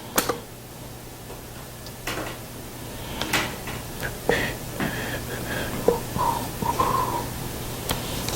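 Scattered light knocks and clicks in a small room, with a few faint short squeaks, over a steady low hum.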